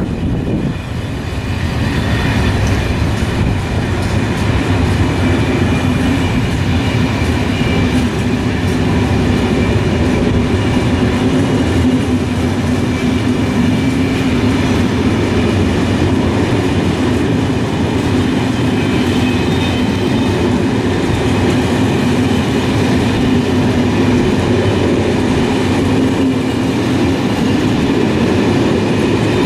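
SNCF Corail passenger coaches rolling past on the rails, a steady rumble of wheels with some rhythmic clacking. It grows louder over the first couple of seconds, then holds steady.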